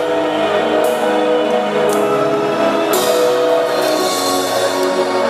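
Live gospel band playing slow worship music without vocals: held chords, with cymbal crashes about a second apart.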